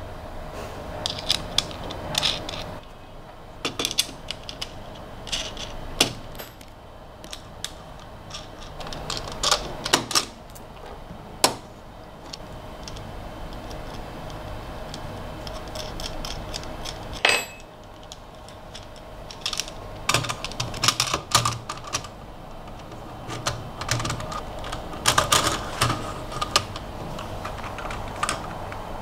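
Irregular clicks and taps of a hard plastic 3D-printed frame and small screws being handled and fitted onto an aluminium CNC bed, over a faint steady hum.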